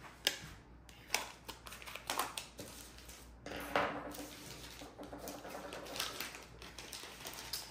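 Plastic diamond-painting tray and tool pieces being handled and set down on a wooden tabletop: scattered light clicks and taps, with plastic packaging rustling.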